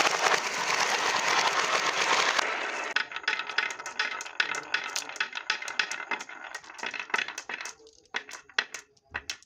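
Many glass marbles on a wooden marble run: a dense clatter of marbles pouring and knocking together for about two and a half seconds, then marbles rolling down the wavy wooden grooves with quick clicks as they bump into one another, thinning out toward the end.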